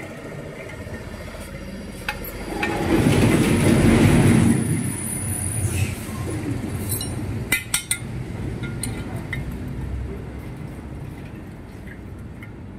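A loud low rumble swells for a couple of seconds and fades, then a few sharp metal clinks about halfway through as an Allen key and hex tool work against an aluminium scooter crankcase.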